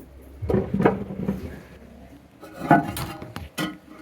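Hard knocks and clinks as a porcelain toilet is handled, in a few short clusters: about half a second in, near three seconds, and once more shortly after.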